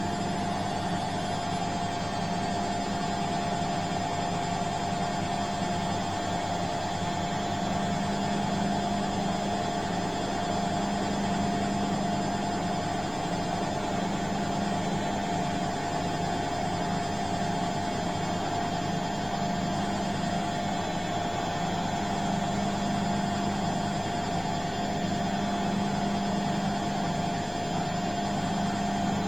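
Bosch washing machine running: a steady motor hum with a constant high whine, and a low drone that swells and fades every few seconds as the drum turns.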